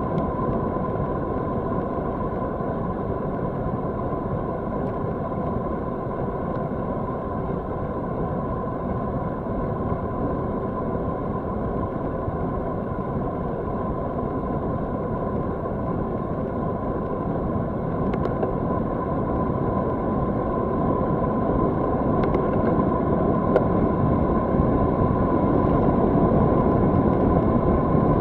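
Wind rushing over the camera microphone and tyre rumble from a road bicycle rolling along asphalt, with a steady high hum underneath. It grows louder over the last several seconds as the bike picks up speed downhill.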